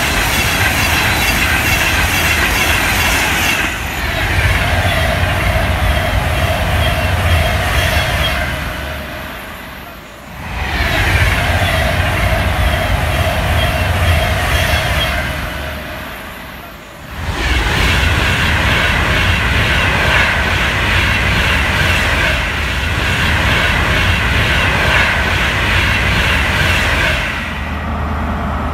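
Electric express trains passing close at speed, three passes one after another with a rush of wheels on rail, each dying away before the next starts. Near the end, a CrossCountry HST's Class 43 diesel power car comes through with a steady low engine hum.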